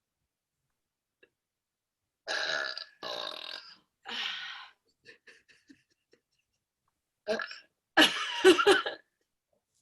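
A woman burping on purpose, one burp after another: three burps in quick succession about two seconds in, a few faint sounds, then a short burp and a long, loud one broken into several pulses near the end.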